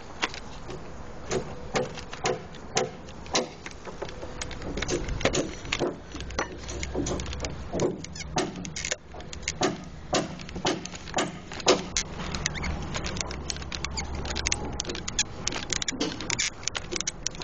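Irregular sharp clicks and light knocks, several a second at times, over a low steady rumble.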